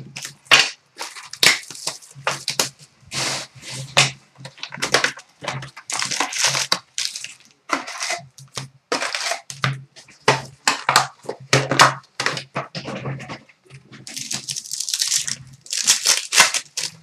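Wrapping being torn and crumpled as a box of hockey trading cards is opened, in a run of irregular rustling, tearing strokes with a faint low hum underneath.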